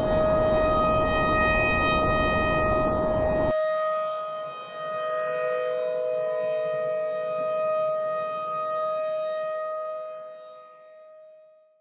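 Steady siren tone over loud static. The static cuts off suddenly about three and a half seconds in, a second, slightly lower tone joins, and the tones fade out near the end.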